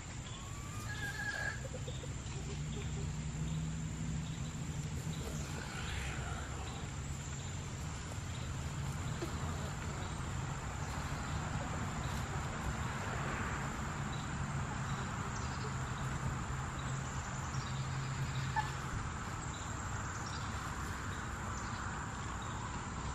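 Steady chirring of insects, with a thin high steady tone throughout and a few faint clucks from Silkie chickens.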